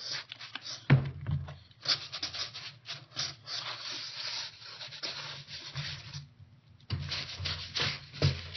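Wide paintbrush scrubbed back and forth over carved foam rock, its bristles rasping in quick strokes as it spreads blotches of paint across the surface. There is a brief pause a little after six seconds in.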